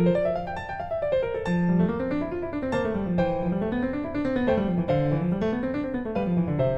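Background piano music, with runs of notes rolling up and down in repeated waves over held lower notes.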